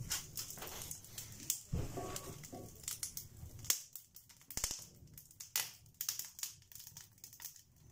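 Wood fire burning in a stove's firebox, crackling with irregular sharp snaps and pops. A low rumble sits under the first half and cuts off abruptly about halfway through.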